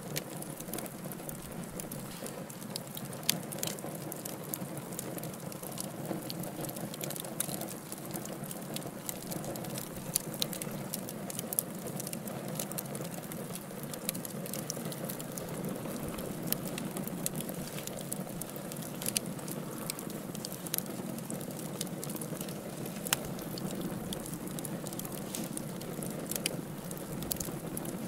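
Wood fire burning in a fireplace: a steady low rush of flames with irregular crackling and occasional sharp pops throughout.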